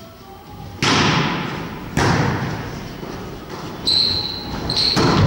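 A volleyball being struck by players' hands and forearms during a rally: four sharp smacks, about a second in, at two seconds, near four seconds and near five seconds. Each one rings out in the echo of a large gym hall.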